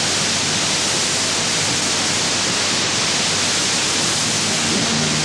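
Steady FM receiver hiss on a National RF-B30 portable radio as the distant station's signal fades into the noise over sporadic-E propagation. Almost nothing of the music is left.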